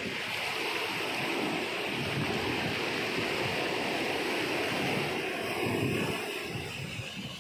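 Sea surf: waves breaking and foaming up a sandy beach in a steady rushing wash that eases off a little near the end.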